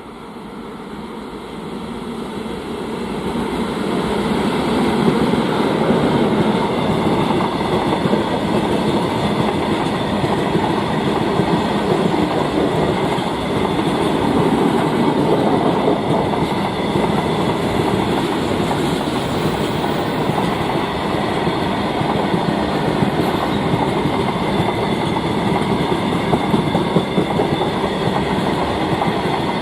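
Freight train rolling past, its wagons' wheels clattering rhythmically over the rail joints. It grows louder over the first few seconds as it draws near, then runs on steadily.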